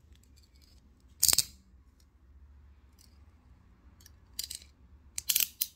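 Pink fuzzy handcuffs being clicked shut, their metal ratchets clicking: one loud click about a second in, then a quick run of clicks near the end.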